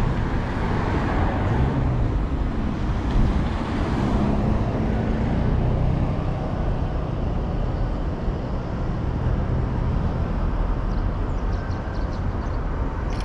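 Steady street traffic noise, with car engines running and tyres passing.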